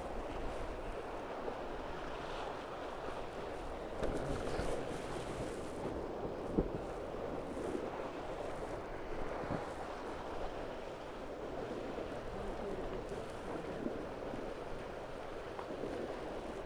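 Water rushing and splashing past the hulls of a Tornado racing catamaran under way, with wind on the microphone; a single short knock about six and a half seconds in.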